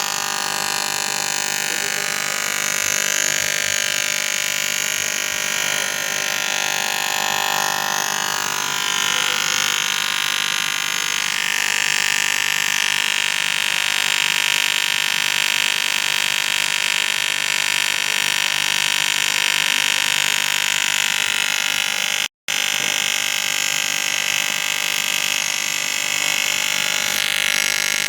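Argon (TIG) welding arc on aluminium, a steady AC buzz with hiss that runs on continuously. It breaks off for an instant about two-thirds of the way through.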